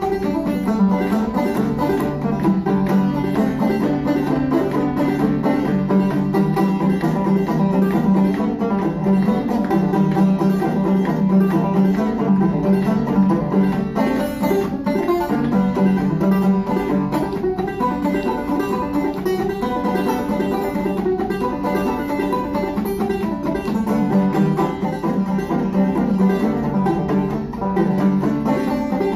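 Solo banjo playing an instrumental break, picked notes at a steady level with no singing.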